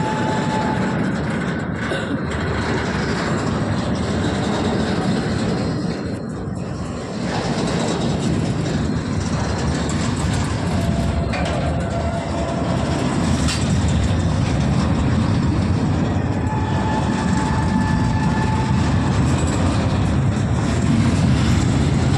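Covered goods wagons of an Indian Railways freight train rolling past close by: a steady loud rumble of wheels on rail with clickety-clack over the joints. A few brief thin wheel squeals come and go, one a little after the middle and a longer one about three quarters of the way through.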